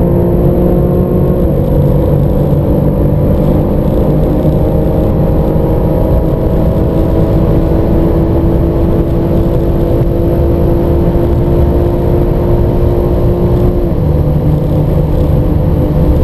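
Engines of BMW M cars (M3, M4, M5, M8) under full-throttle acceleration at high speed, several engine notes layered together. Their pitch climbs slowly through each upper gear and drops at an upshift about a second and a half in and again near the end.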